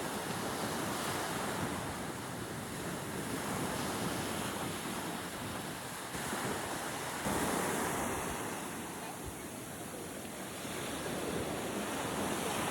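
Steady rushing of sea waves and wind buffeting the microphone, swelling and easing, with a louder surge about seven seconds in.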